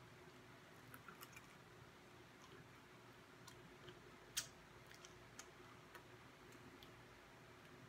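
Near silence with scattered faint clicks from eating a honey-coated fried chicken wing, the small sounds of chewing and sticky fingers. One sharper click comes about four and a half seconds in.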